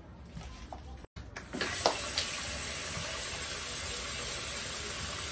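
Kitchen tap running steadily into a plastic bowl held under it, coming on about a second and a half in with a couple of sharp clicks.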